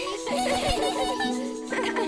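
Cheerful background music of a children's cartoon, with light giggling voices over it.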